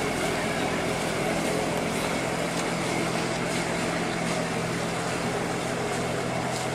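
A tall ship's engine runs with a steady low drone as the ship motors slowly past, over a constant hiss.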